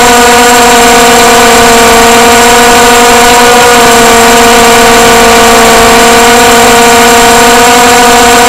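Multirotor drone's electric motors and propellers heard through its own onboard camera while it hovers: a loud, steady buzzing whine that holds one pitch, wavering slightly about halfway through.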